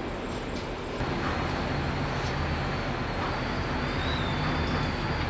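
Steady mechanical rumble and noise aboard a ferry under way, with a low drone from the ship's engines; it grows louder about a second in.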